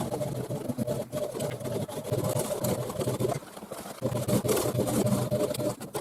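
Sewing machine stitching at speed: a steady motor hum with rapid needle strokes. It eases off briefly a little past halfway, then runs again.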